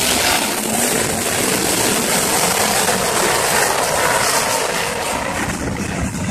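Loud, steady engine noise from a field of winged sprint cars racing around a dirt oval. It eases slightly near the end.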